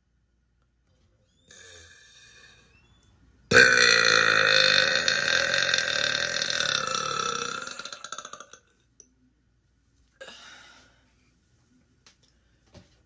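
A woman's long, loud burp of about five seconds. It starts abruptly about three and a half seconds in and trails off, with a brief quieter sound a couple of seconds before it and another shortly after.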